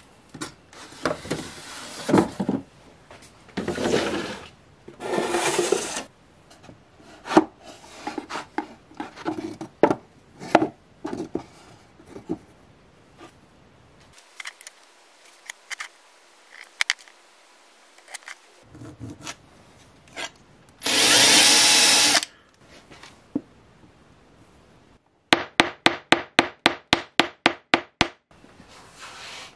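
Wooden boxes and wood blanks being slid, set down and knocked about, with one loud scrape of about a second two-thirds through. Near the end come about a dozen quick, even strikes of a wooden mallet driving a steel lathe drive centre into a square wood blank.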